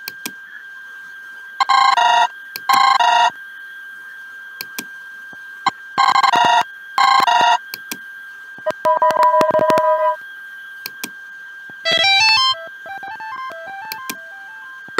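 Android phone ringtones and notification sounds played one after another through an emulator. First a ring in phone cadence: two short electronic trills, a pause, then two more. Then a two-note tone, and near the end a quick rising run of notes that falls away in stepped beeps, with sharp clicks between the sounds over a faint steady high whine.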